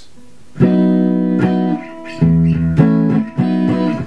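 Electric guitar with its middle and neck single-coil pickups wired in series as a humbucker, playing a short phrase of picked notes and chords that ring on. It starts about half a second in, with roughly seven pick attacks.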